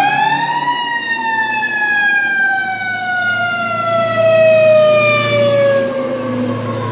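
Fire truck siren on a 1987 LTI quint aerial ladder truck. It climbs to its peak pitch in the first second, then falls slowly and steadily in pitch for several seconds. The truck's engine rumbles louder as it passes close by, about four to five seconds in.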